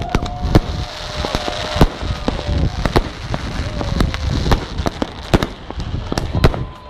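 A fireworks display: many sharp bangs and pops at irregular intervals over a continuous low rumble and hiss, with faint whistling tones now and then.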